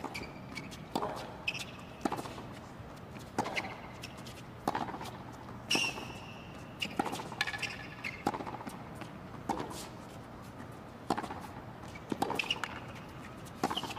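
Tennis rally on a hard court: racket strikes on the ball, a sharp knock roughly every second or so, a dozen or more in all, with short high squeaks between strokes.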